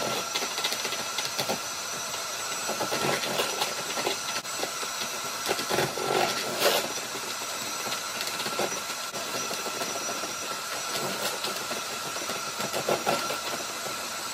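Electric mixer running steadily, its beaters whipping an egg white into white, fluffy foam, with short knocks of the beaters against the bowl now and then.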